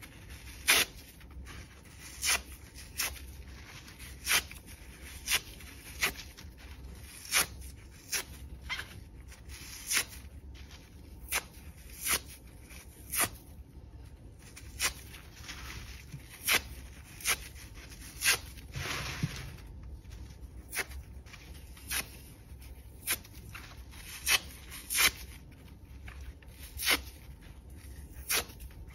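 Soapy microfiber car-sponge pieces torn apart by hand: short, crisp rips about one a second, with one longer, drawn-out tear about two-thirds of the way through.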